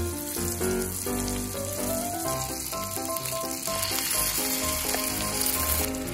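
Hamburger steaks sizzling in a cast-iron skillet after water is added. The sizzle grows louder about four seconds in, as sauce is poured over them. Light background music with plucked notes plays throughout.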